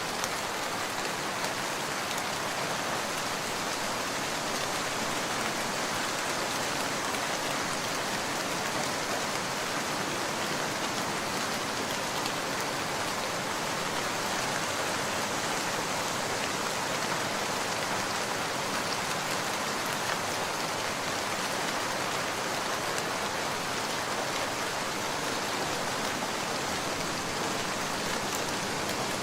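Heavy rain falling steadily, a dense even hiss of raindrops on surfaces without a break.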